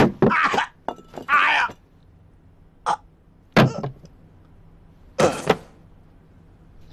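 A man groaning and grunting in pain on the floor after a fall, in several short strained sounds spread across a few seconds.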